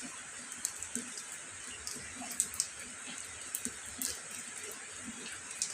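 Steady rain: a continuous hiss with frequent sharp taps of drops landing close by.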